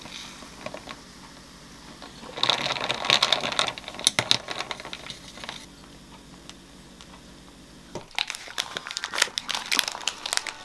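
Paper sandwich wrapper crinkling in two bursts as the wrapped sandwich is handled, the first a little over two seconds in and the second near the end, with a faint crackle of fizzing sparkling water between.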